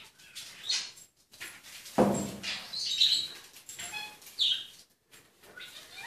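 Pet budgerigar chirping and chattering in short high bursts, with a sudden loud thump about two seconds in.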